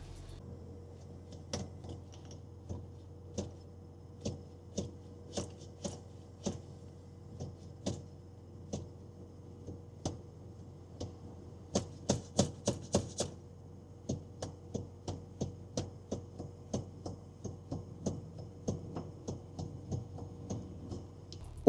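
Scattered light taps and clicks, with a quick run of them about twelve seconds in, over a faint steady hum.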